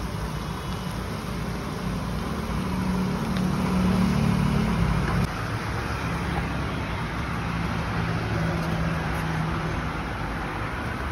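Steady rumble of a large gas burner under a wide iron kadai of liquid at a rolling boil, with the bubbling mixed in. It swells for a couple of seconds and then drops back suddenly about halfway through.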